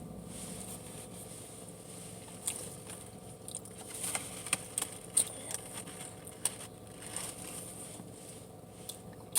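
A person chewing fried chicken, with scattered soft smacks and small clicks.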